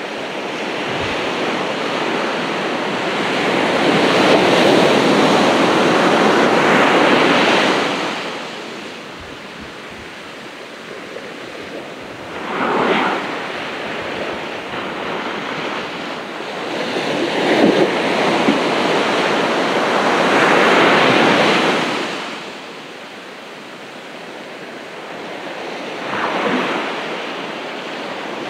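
Ocean waves breaking and washing up on a beach. The surf swells and fades in long surges lasting several seconds, with two short, sharper crashes between them.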